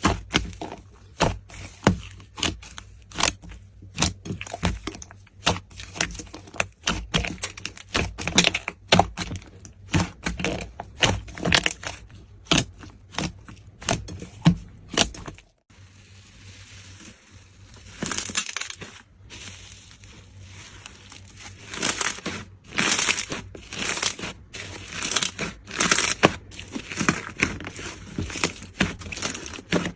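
Slime being squeezed and pressed by hand, giving sharp crackles and pops over and over, with a brief pause about halfway through and denser crackling after it.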